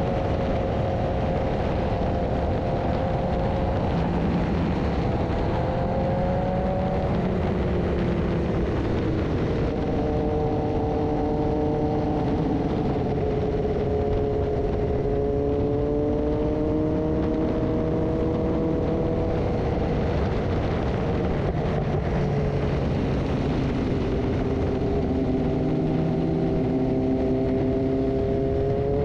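BMW S1000RR inline-four engine running at a steady cruise on a winding road, its pitch rising and falling gently several times with throttle changes, under a constant rush of wind noise on the camera.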